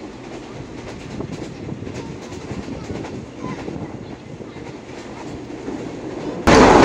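Moving passenger train heard from inside the carriage: a steady running rumble with faint clicking from the track. About six and a half seconds in, the noise abruptly jumps much louder.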